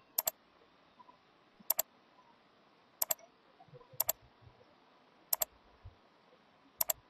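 Computer mouse button clicking six times, each click a sharp quick pair, spaced roughly a second or so apart.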